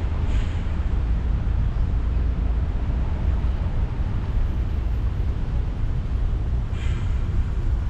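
Wind buffeting the microphone of a camera on a moving bicycle: a steady low rumble, with two brief higher sounds, one about half a second in and one near the end.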